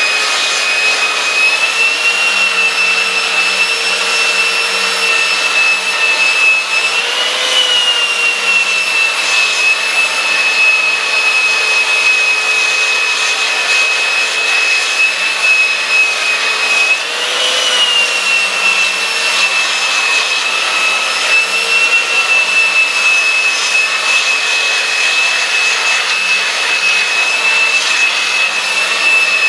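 Skil belt sander running under load, its coarse 40–50 grit belt sanding across the grain of a pine board with a steady high whine. The whine rises briefly twice, about 7 and 17 seconds in, as the load on the sander changes.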